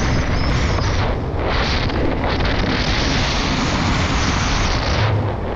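Heavy wind noise on the camera microphone with the rumble of mountain-bike tyres rolling over a gravel and dirt trail at speed. The hiss of the wind drops away briefly twice.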